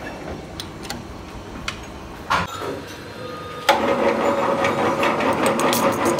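Metal lathe starting up about two-thirds of the way through and then running steadily with a hum and whine. Before that there are a few light clicks and a metallic knock.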